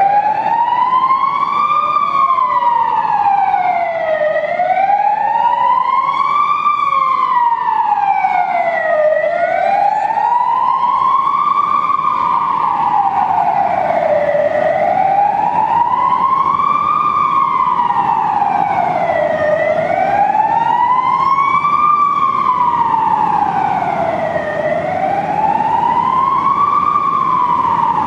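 Police car siren on a slow wail, its pitch rising and falling smoothly about once every five seconds, over low background noise.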